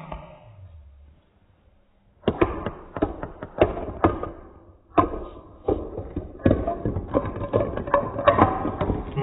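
Glass marbles clacking against each other and knocking along a wooden track, slowed down so the clicks come out low and drawn out. After a faint start, a quick, irregular run of knocks begins about two seconds in.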